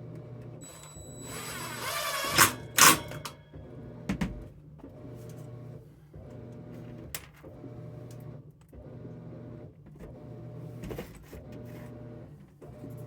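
Cordless drill driving a screw in a short whirring burst about a second in, followed by two sharp knocks. A low hum pulses steadily underneath, about once a second.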